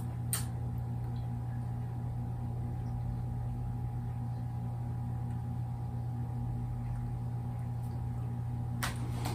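A steady low hum with a faint higher tone above it, and a soft click just after the start and another near the end.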